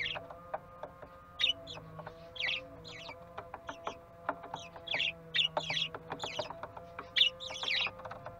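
Budgerigars chirping in short repeated bursts, about two a second, over a faint steady tone.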